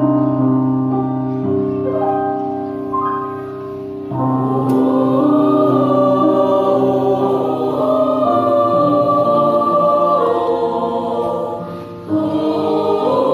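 Mixed high school choir singing sustained chords in harmony. It starts suddenly, grows fuller and louder about four seconds in, and thins briefly shortly before the end before the voices come back in.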